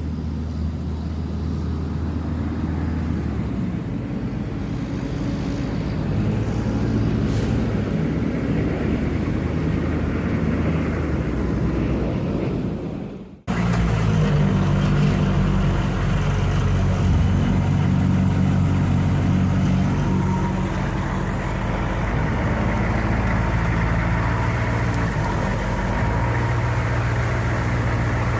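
A Humvee's diesel V8 engine running as the truck is driven, its pitch stepping up and down with the throttle. The sound cuts off abruptly about 13 seconds in, then the engine resumes louder and steadier.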